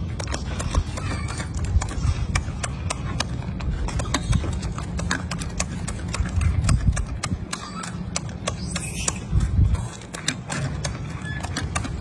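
Golden snub-nosed monkey chewing fruit at close range: many sharp, irregular clicks and smacks of its mouth over a low rumble.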